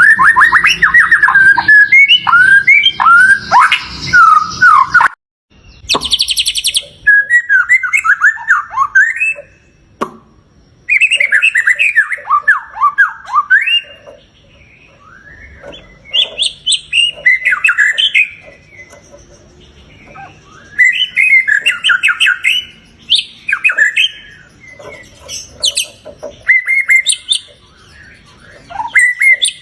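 White-rumped shama (murai batu) song: loud phrases of rich gliding whistles and fast twittering notes, about six phrases separated by short pauses, with a brief harsh buzz about six seconds in. It is a 'pancingan' lure recording, played to provoke a caged shama into singing and getting worked up.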